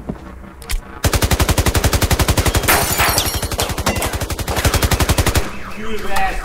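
A long burst of automatic gunfire, starting about a second in: rapid, evenly spaced shots, roughly ten a second, lasting about four seconds before cutting off. A wavering, repeating tone begins near the end.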